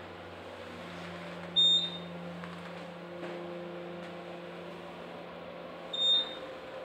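Otis Series 7 traction elevator car moving, with a steady hum inside the cab. Two short, high electronic beeps sound about four seconds apart, from the car's floor-passing signal.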